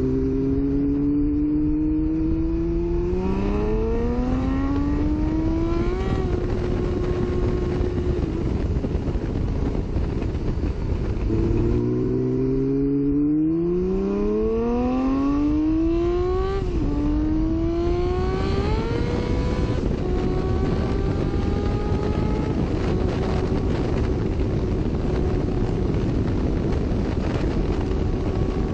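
Honda CBX 1050's inline-six engine accelerating twice in long runs, its pitch climbing and then dropping sharply at each upshift, before it settles into a steady cruising note near the end. A continuous rushing noise runs underneath.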